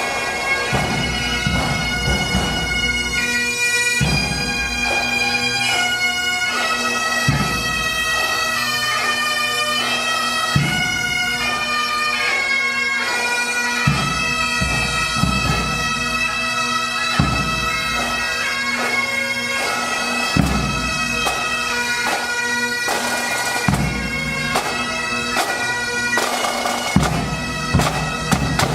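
Pipe band playing a slow tune: bagpipe melody over steady drones, with a low drum beat about every three seconds.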